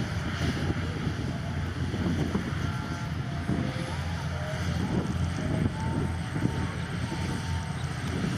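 Heavy diesel engine of construction machinery running steadily with a low rumble.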